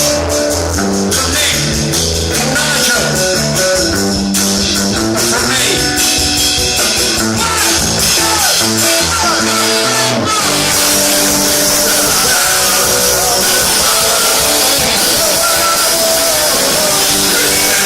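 Punk rock band playing live and loud, with electric guitar and a moving bass line; about ten seconds in the sound turns brighter and fuller.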